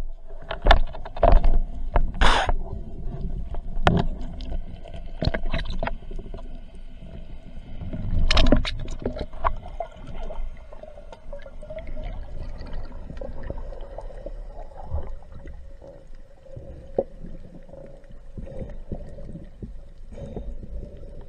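Underwater fish call made by plucking a speargun's rubber bands: irregular sharp clicks and twangs, strongest about eight seconds in, over a faint steady ringing tone and low water rumble.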